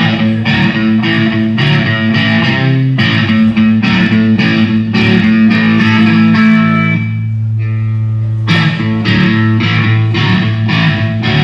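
Guitar strummed in chords through a stage PA during a sound check, about two strokes a second, with one chord left ringing about seven seconds in before the strumming picks up again.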